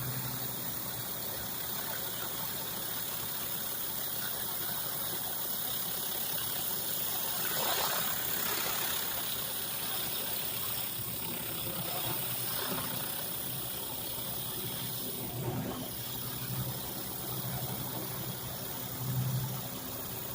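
Commercial pressure washer's engine running steadily under the hiss of high-pressure water from a concrete surface cleaner working over a driveway. The spray swells louder briefly about 8 seconds in and again near 15 seconds.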